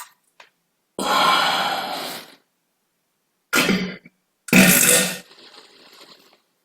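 Three farts in quick succession: a long one lasting over a second, then a short one, then another, each cutting off sharply into silence.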